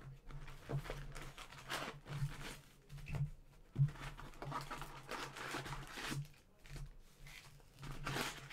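Rustling, crinkling and tearing of packaging as a sealed box of trading-card packs is opened and the packs are handled, in irregular short bursts over a faint low hum.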